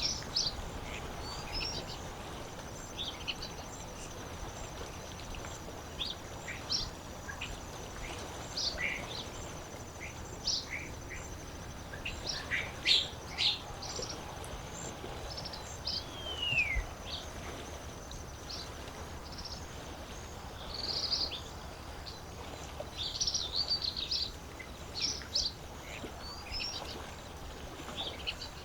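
Several birds chirping and calling at irregular intervals, one giving a falling whistle about sixteen seconds in, over a steady low wash of lakeside water ambience.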